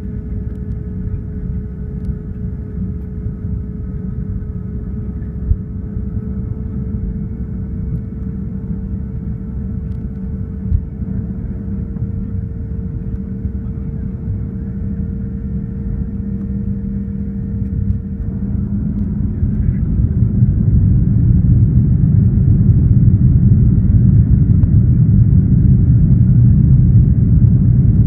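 Boeing 737-800's CFM56 jet engines and cabin noise heard from a seat behind the wing: a steady low hum with a faint thin whine while the plane lines up. About two-thirds in, the whine stops and the noise grows much louder and stays loud as thrust comes up for the takeoff roll.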